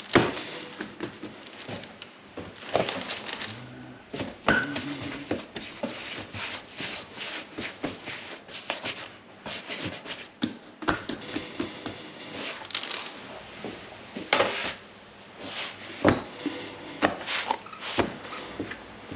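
Irregular knocks, taps and scrapes of hands and tools at work on a bench, with a sharp knock at the very start and a cluster of louder knocks toward the end.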